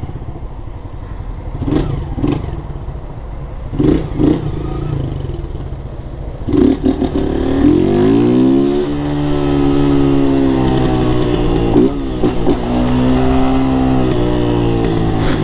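Honda CG 160 Start's single-cylinder four-stroke engine, run with its air filter removed. It idles with a few short throttle blips, then about six and a half seconds in pulls away, revving up, with a brief dip near the end as it shifts gear and then climbs again.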